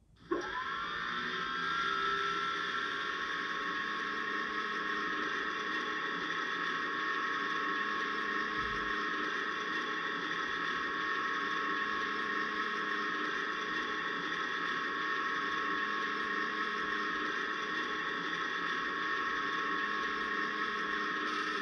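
Ruston Class 37 diesel engine sound played by a model locomotive's DCC sound decoder through an EM1 speaker. It comes on suddenly, with a whine rising over the first couple of seconds, then runs at a steady idle, and stops right at the end.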